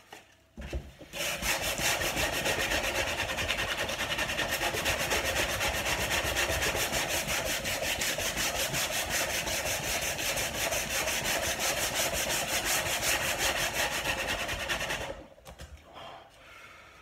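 Coarse-grit sandpaper rubbed by hand over an old wooden tabletop in fast, even back-and-forth strokes, scraping off layers of dirt and discoloured finish. The sanding starts about a second in and stops near the end.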